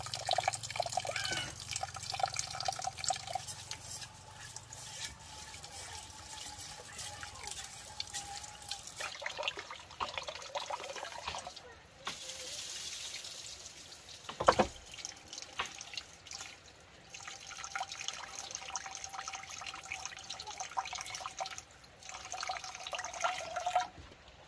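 Water running and splashing, with drips and small clatters of handling, as at a tap or basin; a sharp knock about fourteen seconds in.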